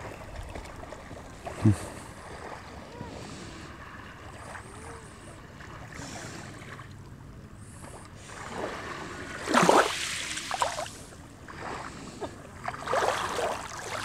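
Small waves lapping and washing on a sandy shoreline of a calm sea, with wind on the microphone. There is a single low thump about two seconds in and a louder surge of washing or gusting around ten seconds in.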